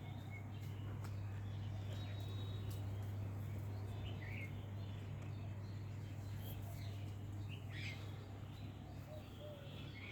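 A few short bird chirps over a steady low hum.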